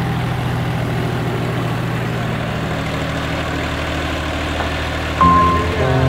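Diesel tractor engine sound, running steadily with a fast low chugging beat, under background music. About five seconds in, the music gets louder with new sustained notes and the engine beat grows stronger.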